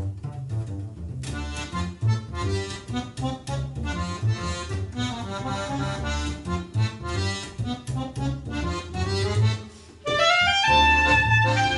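Accordion and plucked double bass playing a lively instrumental tune. The bass plays alone for about a second before the accordion comes in with quick chords and melody; near the end the music drops briefly, then the accordion swells into a louder held chord.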